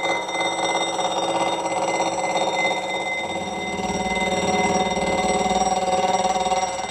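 Milling machine's gear cutter cutting a tooth into a metal gear ring on a dividing head, with a steady metallic ringing over the rapid chatter of the cutter teeth. The cut stops near the end.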